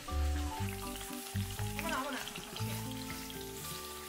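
Strips of raw meat sizzling in hot oil in a nonstick wok, turned with a spatula, as they begin to fry for cabbage fried with fish sauce.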